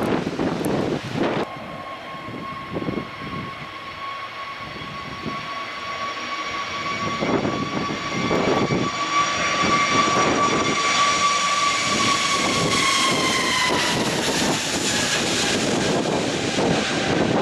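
Airliner passing close by, a steady engine whine with overtones building over rumble and gusting wind on the microphone, then dropping in pitch as the aircraft goes past, a bit past two thirds of the way in.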